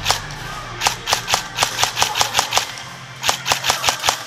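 Airsoft rifle shots: sharp cracks fired in quick strings of single shots, about five a second. One shot comes near the start, a run of about ten around the middle, and a shorter run of about five near the end.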